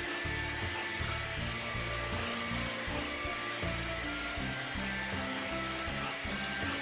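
Background music over the steady whir of an electric hand mixer whipping whole eggs and sugar at medium speed; the foam is thick and pale, close to fully whipped for a genoise sponge.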